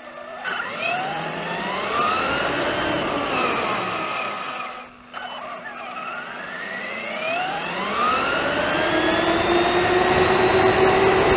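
Traxxas E-Maxx electric RC monster truck driving: its motor and gear whine rises in pitch as it speeds up, falls away and cuts out briefly about five seconds in, then climbs again and holds high near the end.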